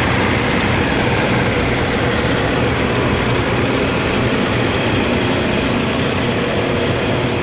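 Claas Consul combine harvester running close by while harvesting barley: its engine and threshing machinery make a loud, steady drone with a few held tones.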